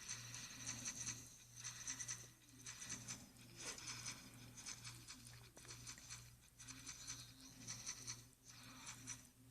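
Faint rustling and crinkling of Magic: The Gathering cards and packaging being handled, in irregular bursts, over a low hum that pulses about twice a second.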